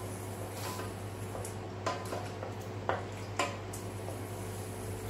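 Wooden spoon stirring butter into water in a small stainless-steel saucepan, knocking against the side of the pan a few times. A steady low hum runs underneath.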